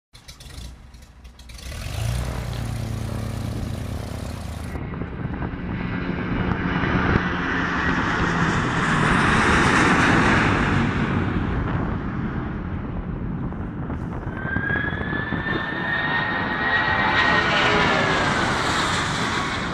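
Boeing 757 cargo jet's twin turbofan engines at high power, starting about two seconds in as a loud rushing jet noise that swells to its loudest as the climbing aircraft passes. In a low pass near the end, a high engine whine bends down in pitch as the jet goes by.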